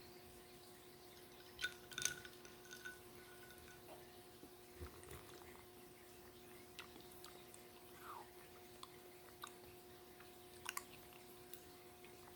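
Faint, scattered clicks and small taps of tableware and eating, one clink ringing briefly about two seconds in and a double tap near the end, over a steady faint hum.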